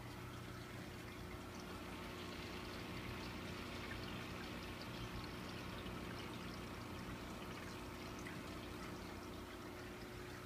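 Aquarium water trickling and bubbling, with many fine ticks, over a steady low hum.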